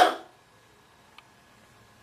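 Near silence: room tone in a pause after a man's speech trails off, with one faint short click about a second in.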